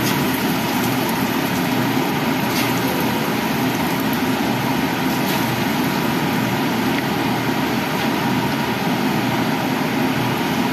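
Egg batter frying in hot oil in a nonstick wok: a steady sizzle over a low, even rumble.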